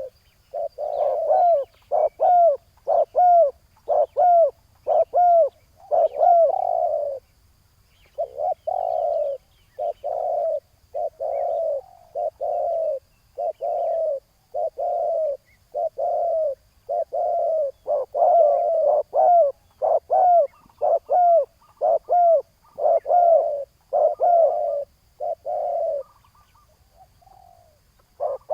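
Spotted doves cooing: a long string of short, low coos, about one or two a second, broken by a pause about seven seconds in and another near the end.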